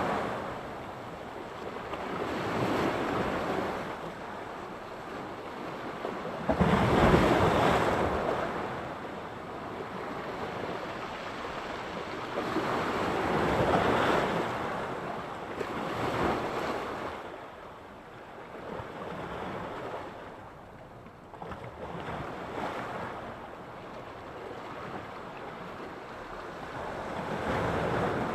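Sea surf: waves breaking and washing ashore, swelling and fading every few seconds, with the biggest and loudest break about seven seconds in.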